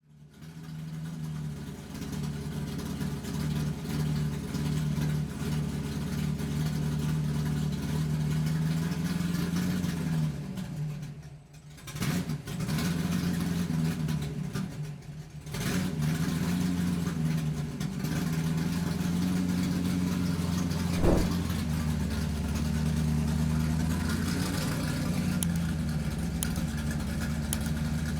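Electric motor and gear train of an MN99S RC crawler fitted with portal axles, running under varying throttle: a steady whine that rises and falls in pitch, dropping away briefly twice around eleven and fifteen seconds in. A single sharp knock sounds about twenty-one seconds in.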